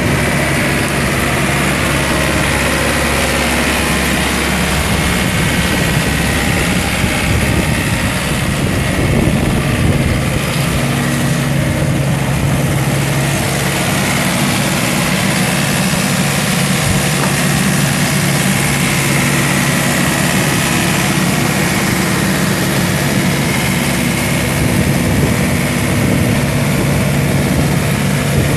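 Yanmar four-cylinder diesel engine of a John Deere 1600 Turbo wide-area mower, running steadily while the mower is driven.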